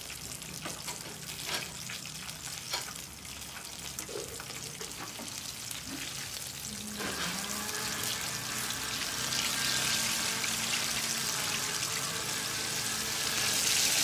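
Slices of ginger frying in hot oil in a wok, a steady sizzle that grows louder from about halfway through. A few light clicks in the first few seconds.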